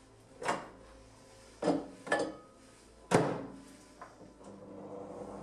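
Countertop microwave oven being loaded: a handful of sharp clunks and knocks from its door and the counter, the loudest about three seconds in, then a click and the oven starts running with a steady hum in the last second.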